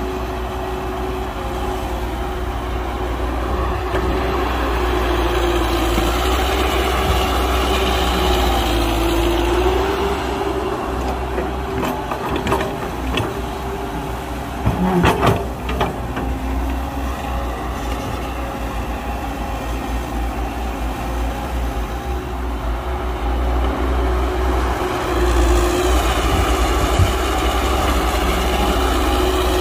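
Heavy diesel engine of earthmoving machinery running steadily with a deep rumble. Its pitch dips and comes back up twice under changing load. A short cluster of metallic clanks and knocks comes about fifteen seconds in.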